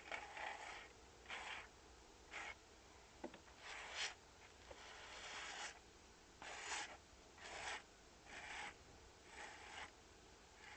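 Faint, rhythmic scraping strokes, about one a second, with one stroke near the middle drawn out longer, like a hand tool rubbed over a rough surface.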